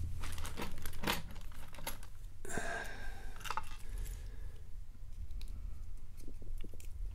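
Small metallic clicks, taps and scraping of a Kwikset-style lock cylinder being handled and taken apart, a plug follower sliding in to push out the plug. The clicks are densest in the first half, with a short rustle partway through.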